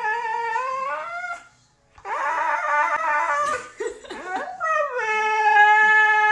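Husky howling: a long held howl that rises near the end and breaks off about a second and a half in. After a short pause comes a rougher, wavering yowl with a few short sliding cries, then another long howl that slides down and holds steady.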